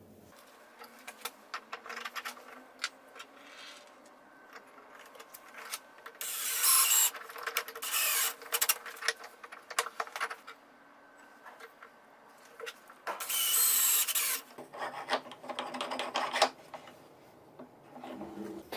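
Homemade plywood-jawed bench vise worked by hand: its screw turned by the wooden dowel handle in a metal pipe fitting, giving scattered clicks and knocks and several loud rasping, scraping stretches as the screw and handle move.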